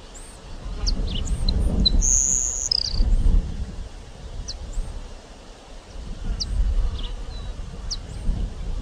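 Grassland sparrow singing: thin, high, quick descending notes, with one longer held high note about two seconds in, over a low rumbling noise.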